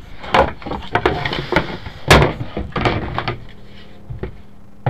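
A run of knocks and clunks from someone moving about inside a small sailboat's cabin, the loudest about two seconds in, then quieter near the end.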